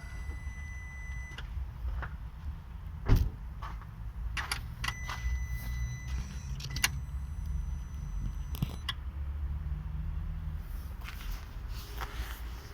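Volkswagen Polo 1.6 engine idling, heard from the engine bay, with a series of sharp knocks, the loudest about three seconds in, as the clutch is released: the knock on clutch release that the owner is complaining about in a car with 1,200 km on it. A high steady whine sounds twice, briefly at the start and again in the middle.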